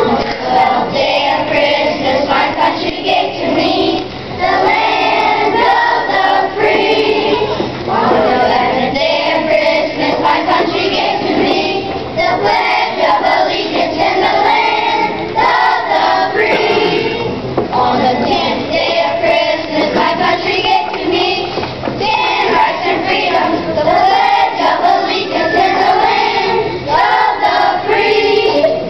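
Children's choir singing together, a group of young voices carrying a melody.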